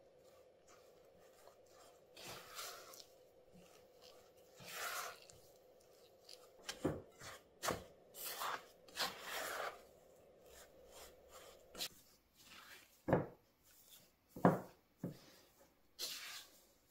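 Silicone spatula stirring and scraping a crumbly potato-and-flour dough around a glass bowl, in irregular scrapes with a few sharp knocks against the glass.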